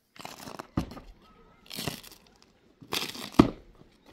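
Three rough crunching strokes about a second apart, two of them ending in a dull thump.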